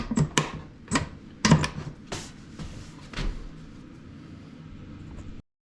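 Wooden drawers of a restored Gerstner machinist's tool chest being slid and knocked shut: about seven sharp wooden knocks and clicks in the first three seconds, over a low steady hum. The sound cuts off suddenly near the end.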